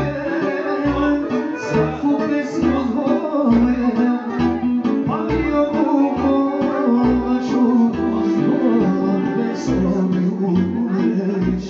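A man singing into a handheld microphone over loud amplified live music, with a regular bass beat.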